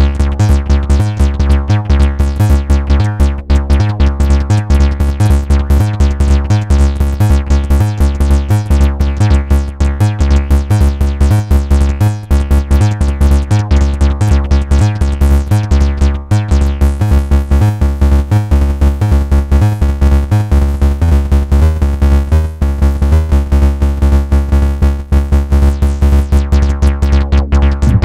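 Live techno from a Eurorack modular synthesizer: a steady kick drum pulse under repeating synth tones and sequenced patterns.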